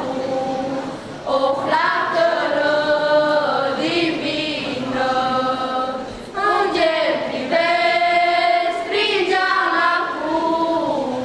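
A small group of girls singing a Romanian Christmas carol (colind) together in long held notes, with brief breaths between phrases about a second in and about six seconds in.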